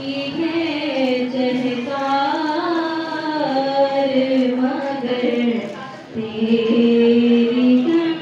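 Voices singing a slow devotional chant, drawn out on long held notes, with a brief break about six seconds in.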